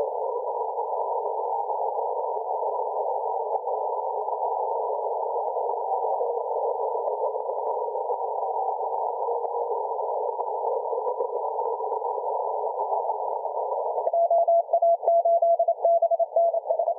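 Shortwave radio receiver audio tuned for Morse code: a steady hiss of band noise carrying faint Morse tones. Near the end a strong Morse code signal comes in, a single tone keyed rapidly on and off.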